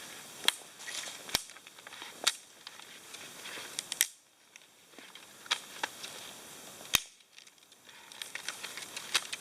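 Dry dead sticks snapping: about eight sharp cracks at irregular intervals, with lighter crackling of brittle twigs and brush between them, as firewood is gathered and broken up.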